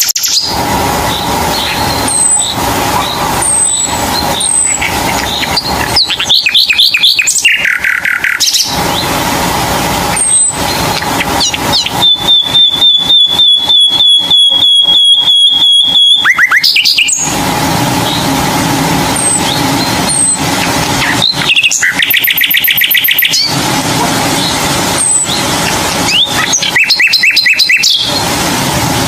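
Birds chirping and calling: short high falling chirps and several quick trills, with one long rapid trill on a steady high note near the middle, over a continuous steady background noise.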